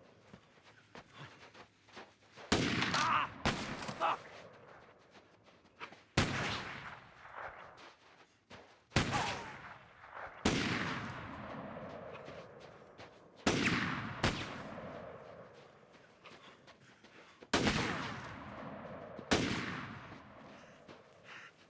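Pistol shots fired in a snowy wood: about nine irregularly spaced shots, each ringing out in a long echo.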